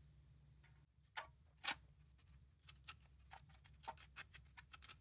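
Faint short scrapes and clicks of a screwdriver blade scraping caked grease and grime off a Toyota solid front axle knuckle, in quick irregular strokes that come more often in the second half, over a low steady hum.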